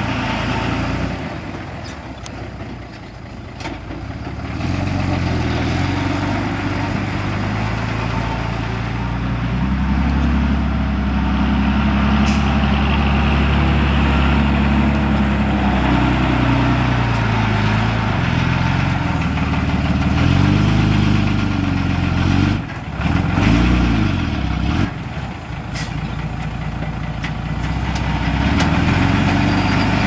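Heavy diesel engine of an earthmoving machine running and revving up and down under load, its pitch rising and falling repeatedly. It eases off a couple of seconds in and briefly drops out twice about three quarters of the way through.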